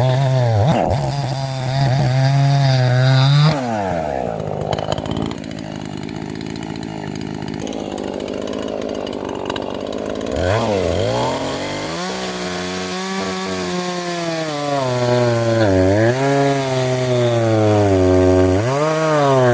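A 43cc Husqvarna homeowner-size two-stroke chainsaw running at high revs while boring into a tree trunk. The engine pitch sags and recovers several times as the bar loads up in the cut, with a lower, quieter stretch in the middle. It is bogging under load, which the owner puts down to the saw needing retuning.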